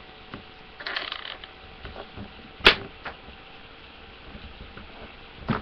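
Tabletop handling sounds while working Play-Doh: a brief rustle about a second in, then a sharp tap about two and a half seconds in, a lighter knock just after, and another tap near the end.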